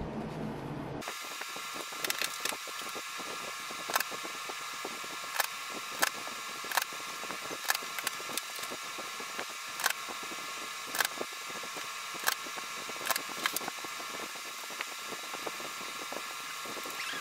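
Irregular light clicks or taps, one every half second to a second and a half, over a steady hiss; a duller background sound cuts off about a second in.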